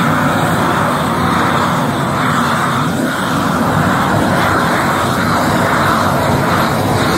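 Long-handled gas torch on a hose burning steadily and loudly, its flame played along the edges of pine deck boards to char them for shou sugi ban.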